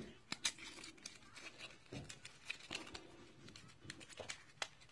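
Faint, irregular clicks and small knocks of a plastic lipstick tube being handled and pulled at, its cap stuck and not coming off.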